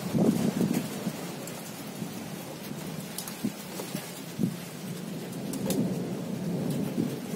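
Rain falling during a night thunderstorm, with rumbles of thunder, the loudest in the first second and another swelling near the end. Scattered sharp taps of drops sound close by.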